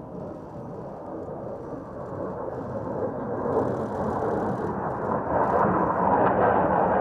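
Military jet's engine noise, a rushing sound that grows steadily louder as the aircraft approaches on a low pass.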